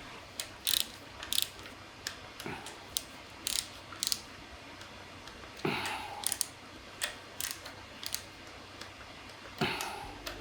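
Hand tools and metal engine parts clicking and clinking at an irregular pace during the final stage of an engine reassembly. Two heavier knocks stand out, one a little past halfway and one near the end.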